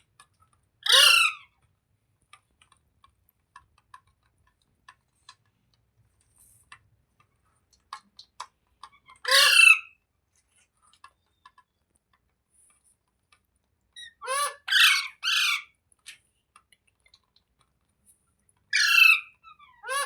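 Indian ringneck parakeet giving loud, short squawks, each falling in pitch: single calls about a second in and near the middle, a quick run of three a little later, and two more near the end. Faint small ticks sound between the calls.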